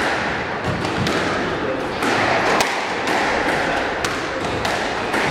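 Squash rally: a series of sharp knocks, roughly one every half second to second, as rackets strike the ball and it hits the court walls, over a murmur of spectators.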